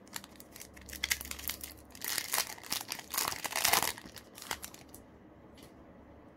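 Foil wrapper of a Yu-Gi-Oh! booster pack crinkling and tearing as the pack is opened, a dense crackle loudest in the middle that stops about five seconds in.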